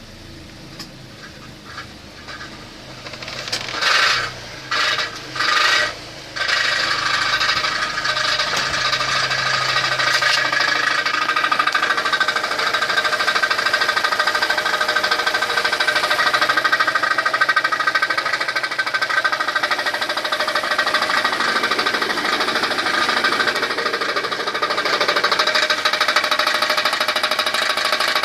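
F14D4 1.4-litre four-cylinder petrol engine running with a rapid knock. Three short louder bursts come about four to six seconds in, after which it runs steadily and much louder, the rapid knocking continuing throughout.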